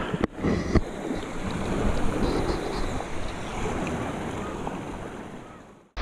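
Fast, shallow river rushing over rocks, heard at water level as a steady rush of water. It fades out near the end.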